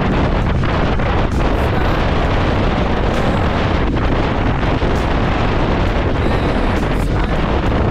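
Steady wind rush buffeting the microphone on a Bajaj Dominar 400 motorcycle riding at road speed, with the engine running underneath.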